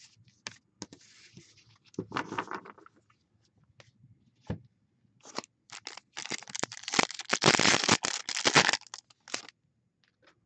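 Trading cards being handled with scattered light clicks, then a foil trading-card pack wrapper torn open and crinkled for about four seconds in the second half.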